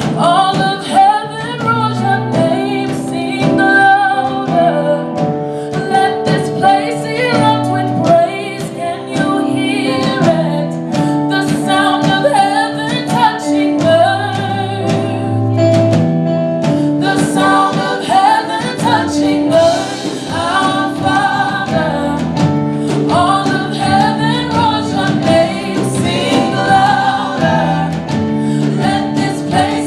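Gospel song with a lead vocalist singing over held instrumental chords and a steady beat.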